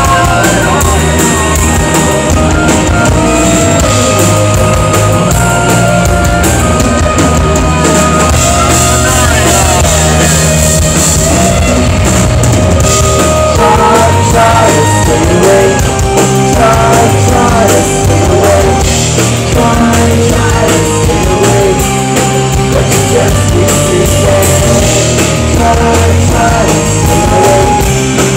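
Live rock band playing loud: electric bass, drums and synthesizer, with a singing voice over them.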